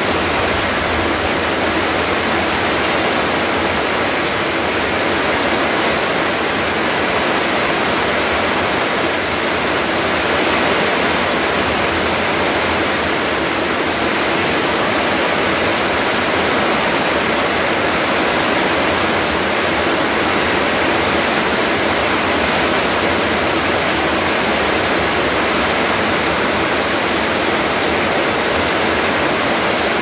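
Heavy rain pouring down in a steady, dense downpour: an even hiss with no breaks or changes.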